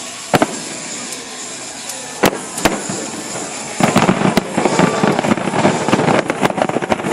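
Fireworks going off: three separate sharp bangs, then from about four seconds in a dense, rapid crackling of many small pops.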